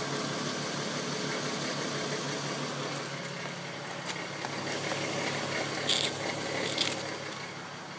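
The 3.2-litre VR6 engine of a Mk5 VW R32 idling in park, with a rattling chatter from the DSG drivetrain that is stronger in the first few seconds. The owner hears this chatter only in park or neutral and suspects the dual-mass flywheel. Two short, sharp high-pitched noises come near the end.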